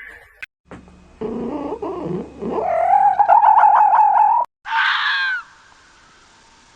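Animal calls: a low call that rises into a long wavering cry, then a short higher call with falling sweeps about five seconds in.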